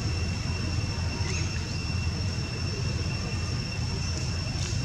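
Outdoor ambience: a steady low rumble under a constant high-pitched insect drone, with a few faint short chirps.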